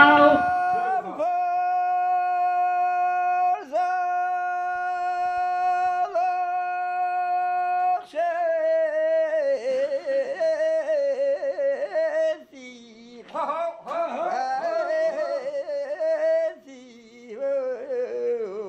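A man singing raweh, an Assyrian sacred melody, solo: long, steady held notes broken by short breaths, then, about eight seconds in, the voice moves into wavering, ornamented runs.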